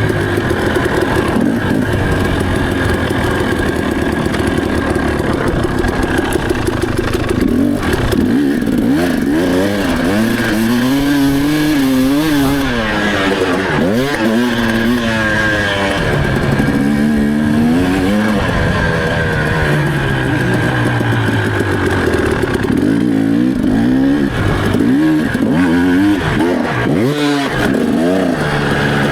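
2017 KTM 300 two-stroke enduro engine being ridden: it runs fairly steadily for the first several seconds, then revs up and down again and again with the throttle.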